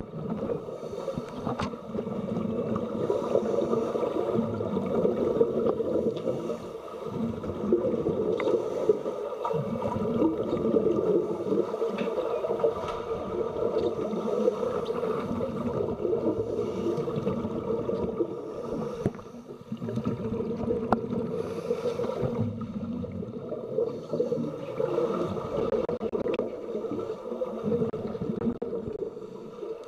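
Muffled underwater bubbling and gurgling from scuba divers' regulators venting exhaled air, heard through a camera held underwater. The bubbling is steady with a few brief lulls, near the quarter mark and a little after the middle.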